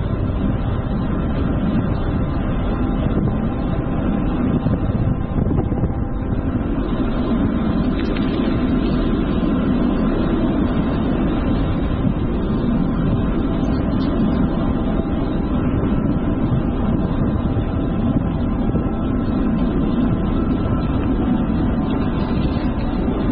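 Steady wind rush and rumble on a GoPro Hero 7's microphone while cycling on a road.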